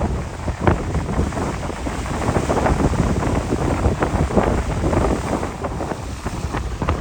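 Strong storm wind buffeting the microphone: a constant low rumble with many short crackling gusts.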